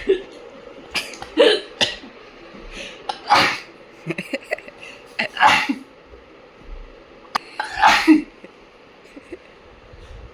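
Repeated sneezes, about half a dozen sudden bursts at irregular gaps, set off by sneezing powder taken up the nose.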